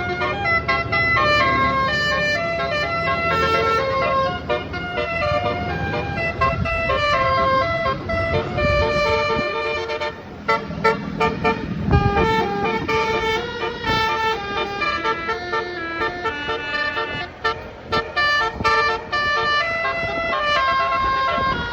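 Basuri musical horn on a truck playing a tune, one pitched note after another, over a low rumble.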